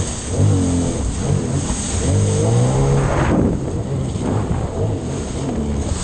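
Sea-Doo Spark Trixx personal watercraft running through small waves, its engine pitch rising and falling with the throttle, climbing to a peak about three seconds in and then dropping, over a steady hiss of water spray.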